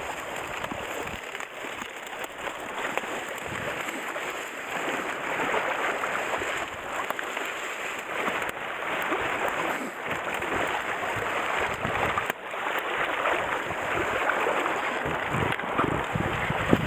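Shallow stream running steadily, with uneven splashing and rustling as a hand net is shoved and worked through the bamboo-grass bank at the water's edge to drive shrimp into it.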